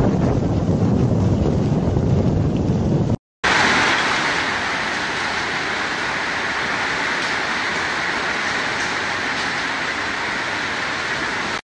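Storm-force wind buffeting the microphone with a low rumble for about three seconds. After a cut, a steady hiss of wind-driven rain and gusts blowing through a building's glass-door entrance.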